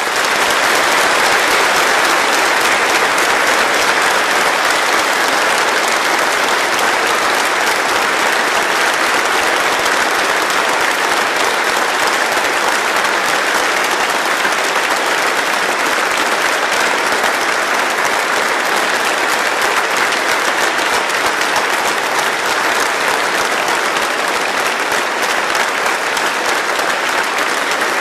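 A large congregation applauding: dense, steady clapping that eases slightly near the end.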